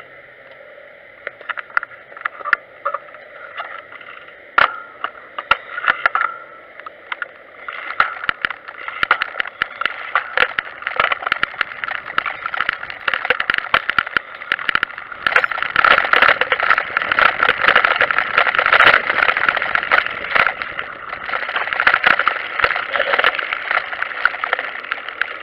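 Trike and its handlebar-mounted camera rattling over cobbles and stone paving: a dense clatter of knocks and clicks. It is sparse at first, grows busier about eight seconds in and is heaviest a little past the middle.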